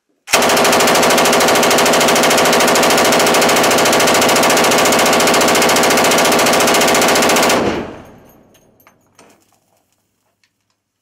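Zastava M84 belt-fed machine gun in 7.62x54R firing one long continuous burst of about seven seconds, which stops abruptly. The report reverberates briefly afterwards, followed by a few faint clicks.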